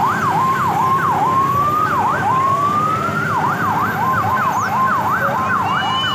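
Electronic siren sounding. Its tone alternates between slow rising sweeps and quick up-and-down warbles, turning mostly into rapid warbles from about halfway through, over a steady background rumble.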